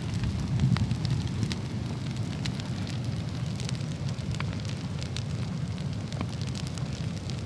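Brush pile of dry branches and leaves burning: a steady low rush with scattered sharp crackling pops.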